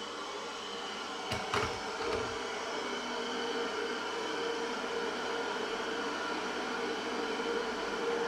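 Tower T10052BLK 3 kW electric kettle heating a little water above its minimum mark, a steady hiss and hum, with a couple of short knocks about a second and a half in.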